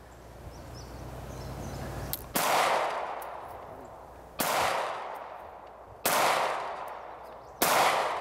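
Handgun fired four times, one shot every couple of seconds, each crack followed by a long fading echo.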